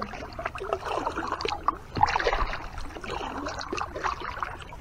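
Kayak paddle strokes: the blades dip and pull through calm water, with an irregular patter of splashes and drips and one louder knock about two seconds in.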